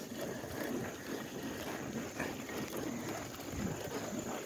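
Wind rushing over the microphone with the rumble of a bicycle rolling along a rough paved path on nearly flat tyres.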